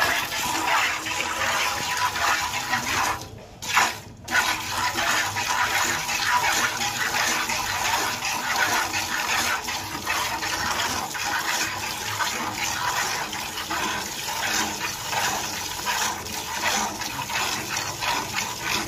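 A cow being milked by hand: jets of milk squirting from the teats in quick alternating streams, a steady splashing that breaks off twice about three and four seconds in.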